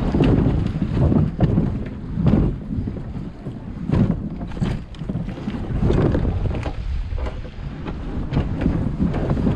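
Wind buffeting the microphone over gentle sea waves, with water splashing and sloshing every second or two.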